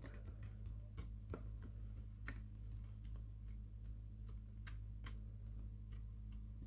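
Faint, irregular clicks of acrylic paint tubes knocking against each other as a hand moves across them in a wooden drawer, over a steady low hum.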